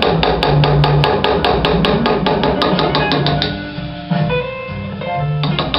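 Small hammer tapping a hand-engraving chisel as it cuts scrollwork into a steel facão (machete) blade: rapid even taps, about six a second, that stop for about two seconds after the middle and start again near the end. Guitar music plays underneath.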